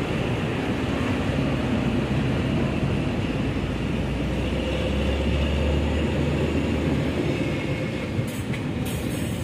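A large ferry's engines running with a steady low rumble, with water churning along the hull as the ship berths. The deep hum swells for a couple of seconds in the middle.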